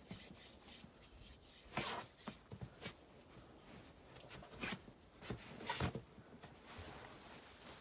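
Faint scattered rubbing and scuffing of a climber's hands, rubbed together and then brushed and patted against the sandstone holds of a boulder, with a few sharper scuffs about two seconds in and again around six seconds in.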